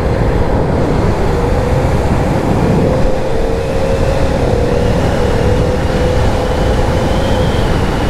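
2006 KTM 990 Super Duke's V-twin engine running steadily at an even cruise, heard from the rider's seat inside a road tunnel.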